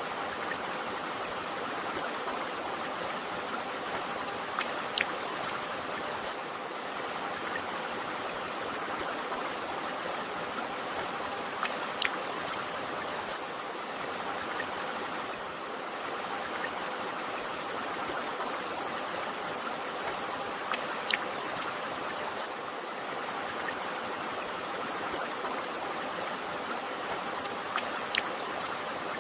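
Running water of a river or stream, a steady even rush. A few brief sharp splashes stand out about every seven to nine seconds.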